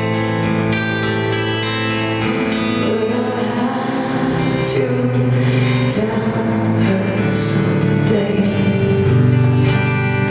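A woman singing live into a microphone over a band's accompaniment, holding long notes.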